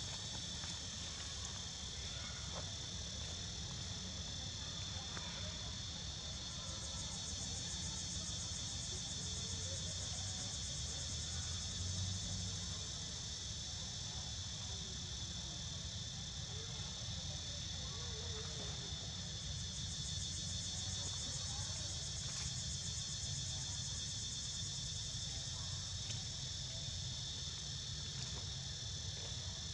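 A steady chorus of insects: a continuous, high-pitched chirring from many insects at once, over a low steady rumble.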